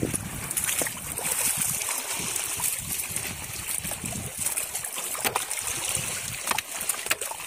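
Shallow seawater trickling and washing among rocks, with a few sharp taps in the second half as a wooden stick probes between the stones.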